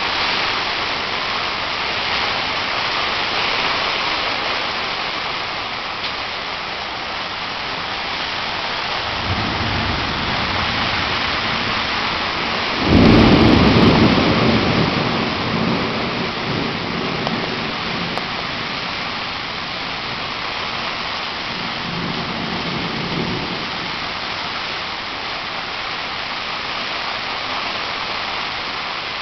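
Strong wind blowing steadily, with gusts hitting the microphone as deep rumbles, the loudest about 13 seconds in.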